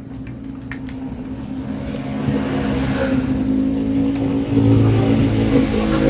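A motor vehicle's engine running and growing steadily louder, its pitch shifting slightly past the middle, with a few light clicks in the first second.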